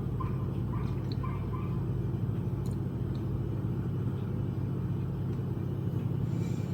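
A steady low rumble throughout, with five faint short chirps in the first two seconds.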